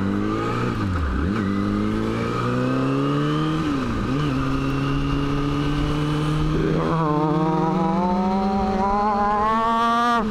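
Kawasaki motorcycle engine pulling hard through the gears. Its pitch climbs, then dips briefly at each of three upshifts, about a second in, about four seconds in and about seven seconds in.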